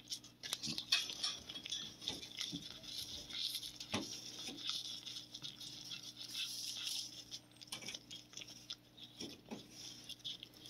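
A cat chewing a dried chicken-breast (sasami) treat: irregular small crunches and clicks, with a few louder bites.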